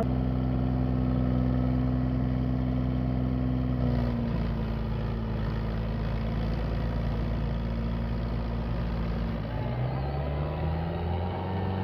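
Two tractors' diesel engines running at high revs under full load as they pull against each other, chained back to back in a tug-of-war. The engine note holds steady, eases slightly about four seconds in, then dips and climbs again near the end.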